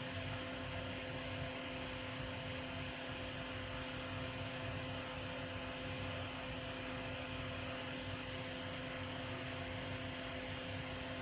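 Solder fume extractor fan running steadily: an even rushing noise with a constant low hum.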